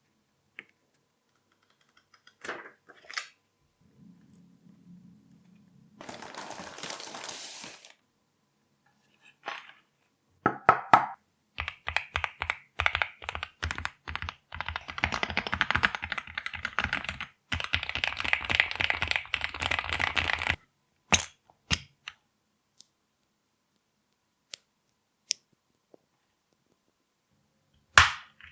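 Typing on a Keychron Q4 HE keyboard with Hall-effect magnetic switches: a few scattered keystrokes, then about nine seconds of fast, continuous typing, then a handful of single key presses. Early on a brief hiss lasts about two seconds.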